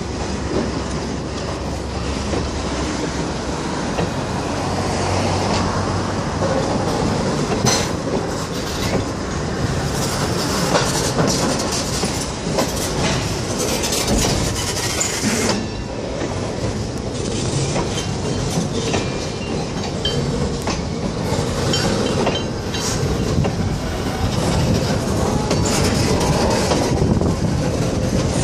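Freight cars rolling slowly past on jointed rail, their wheels clacking over the rail joints with a steady rumble and creak of the loaded cars. A high wheel squeal comes in around the middle.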